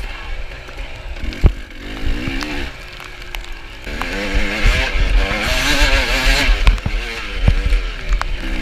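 Dirt bike engine revving up and down as it is ridden through mud, with a sharp knock about a second and a half in and a rush of hiss around the middle.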